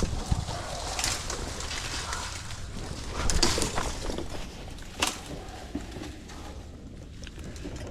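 Scattered knocks and clatter over a steady background hiss, the loudest near three and a half and five seconds in.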